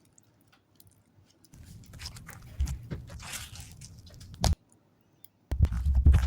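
Slime being squished and kneaded by hand with makeup worked into it, giving wet crackles and sticky clicks. It starts about a second and a half in, has loud squelches near the middle, pauses briefly, then comes back loud near the end.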